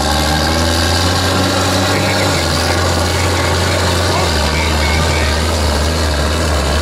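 Big diesel engines of a John Deere 9520 and a New Holland T9 four-wheel-drive tractor running hard under load as they pull against each other, a loud, steady deep drone.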